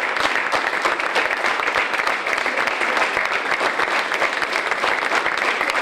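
Audience applauding, many hands clapping at once in a dense, steady stream.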